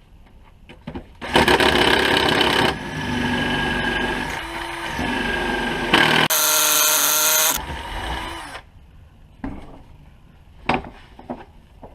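Electric drill running, boring out a hole in the broken corner piece of a Holley carburetor's throttle base plate. The motor's pitch shifts as it cuts, and the drilling stops about three-quarters of the way through, followed by a few light clicks.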